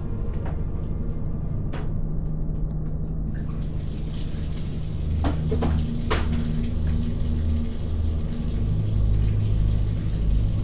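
Water starting to run into a bathtub about three and a half seconds in, with a few knocks, over a low droning music score.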